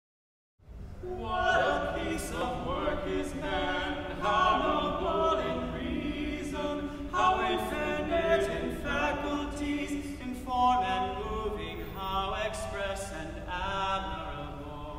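Mixed church choir singing in a reverberant stone church, the sound starting about half a second in.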